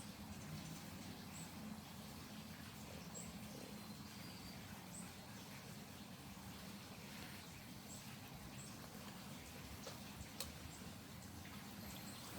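Faint, short, high-pitched bird chips, one every second or two, over a steady low hum. A single sharp click about ten seconds in.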